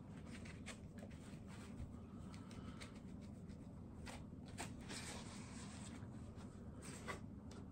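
Faint rustling and scraping of a styrofoam packing insert being handled, with scattered small clicks.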